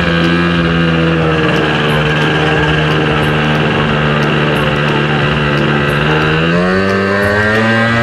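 Yamaha Jog ZR Evolution scooter's 50 cc two-stroke 3WF engine running under way at a steady speed, its pitch climbing over the last second or two as the rider opens the throttle and it accelerates.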